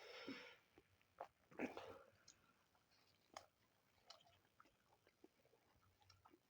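Faint chewing and mouth sounds of a person eating, with a couple of louder bites in the first two seconds and a sharp click a little after three seconds in.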